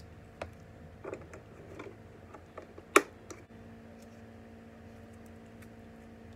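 Plastic clicks and knocks from handling a Dymo label writer and its label-roll spool, the loudest a sharp click about three seconds in. A faint steady hum starts just after it.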